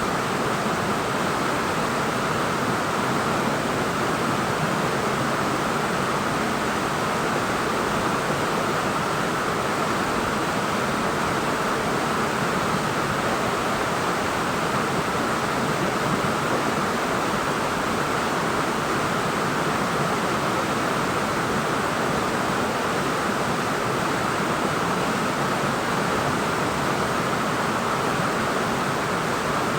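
Waterfall: water rushing and pouring, an even, unbroken hiss at constant level.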